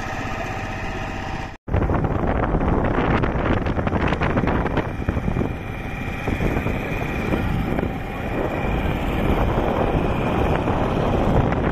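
Motor boat's engine running steadily. After a cut about a second and a half in, gusty wind on the microphone and rushing water mostly cover the engine as the boat moves at speed.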